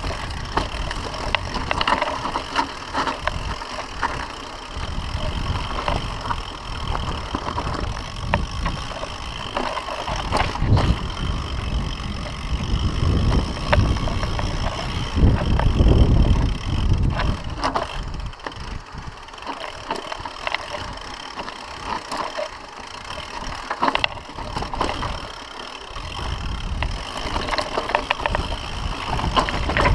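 Mountain bike riding down a rough dirt and rock singletrack: tyres crunching over stones and roots, with constant rattling clatter from the bike and a low rumble that swells about halfway through.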